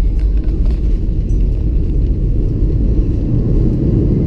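Airliner on its landing roll, heard from inside the cabin: a loud, steady low rumble of the engines and the wheels on the runway.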